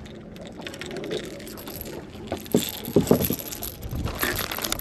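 Fishing tackle being handled: a scatter of light clicks and metallic rattles, with a few louder knocks a little past the middle.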